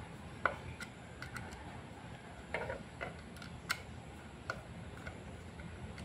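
Faint, irregular light clicks and ticks of a screwdriver and fingers working on the terminals of a water pump's low pressure switch while it is being wired, with a short scrape about two and a half seconds in.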